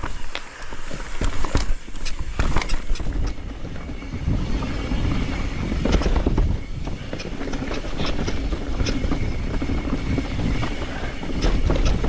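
Mountain bike riding down a steep dirt and root trail. Tyres rumble over the ground while the chain and frame rattle and clack, with many sharp clacks in the first few seconds, then a steadier low rumble from about four seconds in.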